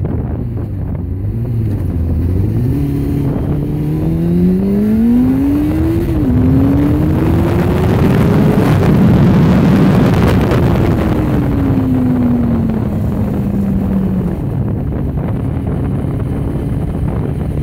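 1999 Kawasaki ZX-6R's inline-four engine accelerating hard, with wind rushing over the windscreen-mounted microphone. The revs climb, drop at an upshift about six seconds in, and climb again. The wind rush peaks around nine to ten seconds in, then the revs fall away steadily and settle.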